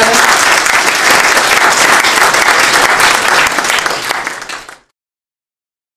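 Audience applauding, many hands clapping together, then cut off suddenly about five seconds in.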